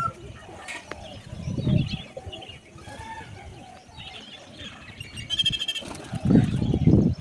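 Domestic pigeons cooing in low, pulsing bouts, about a second and a half in and again near the end, with a short high-pitched bird call just after five seconds.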